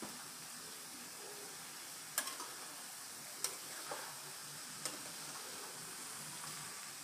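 Chopped ridge gourd sizzling in hot oil and masala in a pan, with a steady hiss. A few short clicks of a metal spatula knocking and scraping against the pan come in the middle.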